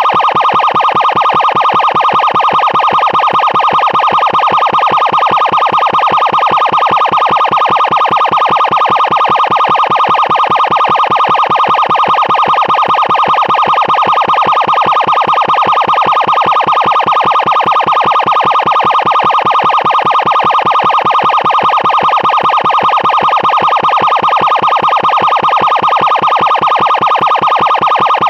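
Extremely loud electronic emergency siren sounding a steady, harsh tone that holds one pitch without rising or falling, with a rapid pulsing buzz in it.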